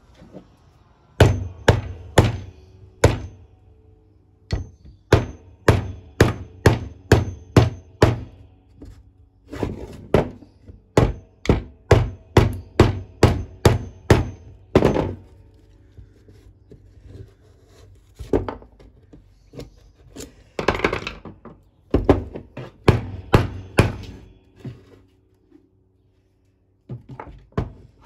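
Repeated sharp knocks from striking the DeWalt 18 V drill's motor with hand tools on a wooden workbench to force the housing apart. The blows come in runs of about two to three a second with short pauses, and there is a longer scraping sound about two-thirds of the way through.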